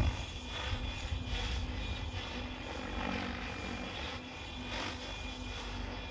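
Radio-controlled model helicopter flying, a steady engine and rotor whine over a low rumble.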